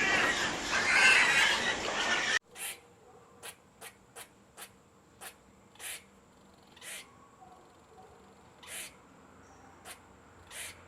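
Loud, dense animal noise that cuts off abruptly about two seconds in. Then come faint, short, sharp high chirps or clicks about once a second.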